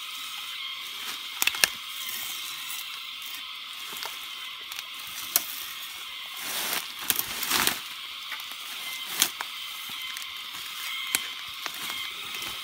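A plant stem being cut with a knife and its outer layers torn and peeled away toward the tender white core: scattered sharp cracks and knocks, with a longer run of tearing near the middle, over a steady high hiss.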